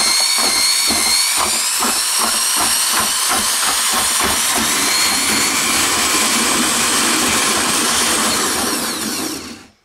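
RIDGID mud mixer's motor running at speed with a steady high whine, its paddle churning a still-thin batch of mortar in a plastic bucket with a regular low pulse underneath. The motor cuts off near the end.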